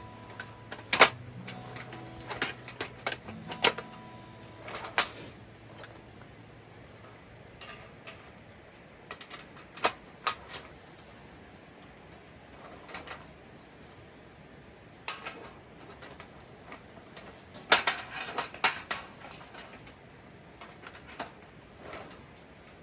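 Scattered clicks, knocks and clatters of objects being handled, bunching into a quick run of knocks a little over halfway through; background music fades out in the first few seconds.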